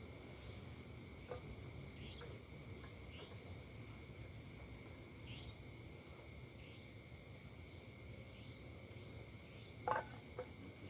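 Forest insect chorus: steady high-pitched cricket trills, with short falling chirps repeating about once a second. A brief knock or clatter near the end is the loudest sound.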